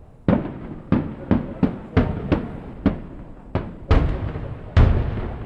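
Aerial fireworks bursting overhead: about ten sharp bangs in quick, uneven succession, each with an echoing tail, the heaviest booms near the end.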